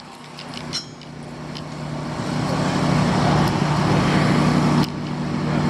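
Construction machinery engine running steadily with a low hum, growing louder over the first few seconds and dipping briefly near the end.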